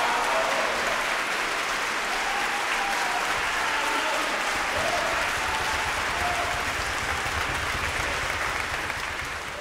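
Large concert-hall audience applauding steadily.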